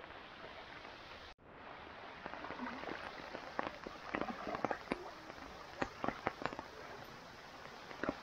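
Steady hiss of rain falling on floodwater, with scattered short taps and splashes. The sound breaks off for an instant about a second and a half in.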